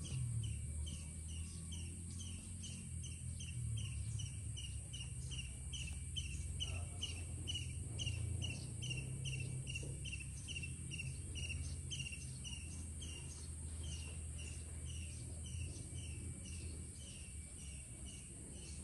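Outdoor insect chorus: a steady high-pitched drone with a short repeated chirp, about two or three a second, over a low rumble.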